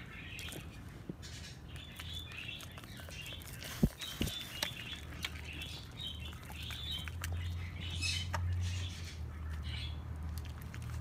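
Small birds chirping, with scattered clicks and a sharp knock about four seconds in.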